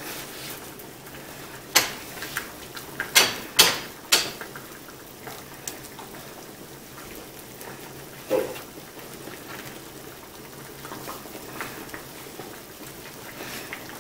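Hands stretching and folding puff pastry around a raw beef patty on a plastic cutting board: a handful of sharp taps and clicks in the first few seconds, then a duller thump about eight seconds in and a few light ticks.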